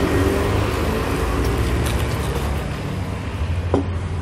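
Steady low rumble of motor traffic and engines running nearby, with a few faint clicks.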